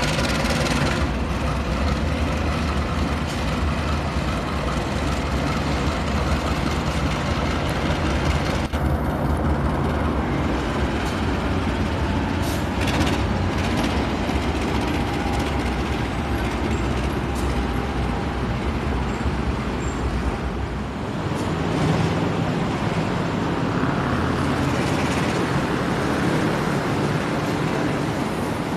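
Train of oil tank wagons rumbling steadily past, the end of its horn fading about a second in. The deep low rumble drops away about two-thirds of the way through.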